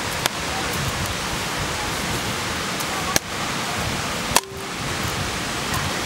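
Steady rushing of a waterfall and river, with three sharp knocks as roasted corn cobs are dropped into a glass bowl.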